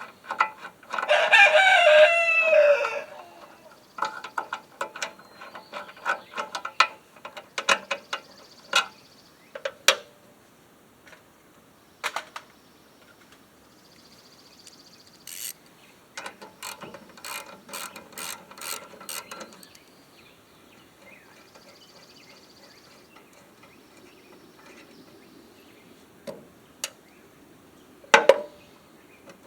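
A rooster crows loudly once, about a second in. Afterwards come runs of rapid ratchet-like clicking and scattered knocks from hand tools at work on the mower's recoil starter.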